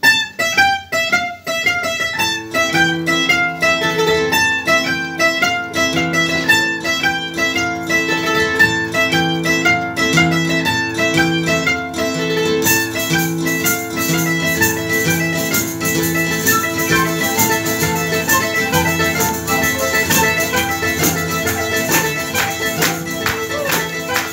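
Live tarantella played by a folk ensemble: quick plucked mandolin and guitar notes open the piece. Percussion joins about halfway through, driving a fast steady rhythm.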